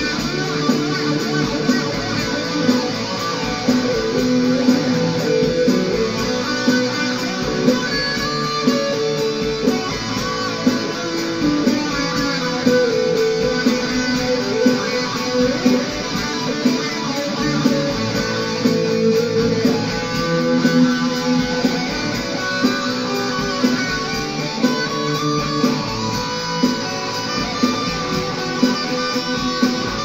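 Guitar music: a plucked-string piece of picked notes and chords, playing continuously at a steady level.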